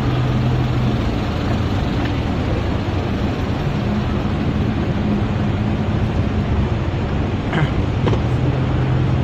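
Passenger van's engine idling steadily, heard from inside the cabin as a constant hum. A few short knocks and rustles near the end as a bag wrapped in plastic is handled by the sliding door.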